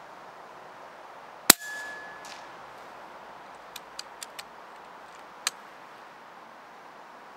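A 6.35 mm PCP air rifle, the Yeger Korotysh, fires one sharp shot about a second and a half in, with a brief beep right after it and a faint clang a moment later from the pellet striking the steel silhouette target at 100 m. Four light metallic clicks follow, then a sharper click near the end.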